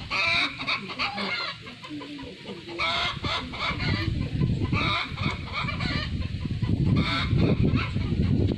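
Short, high-pitched animal calls that bend in pitch, repeated in small clusters every second or two. Under them, in the second half, is a low noisy rumble.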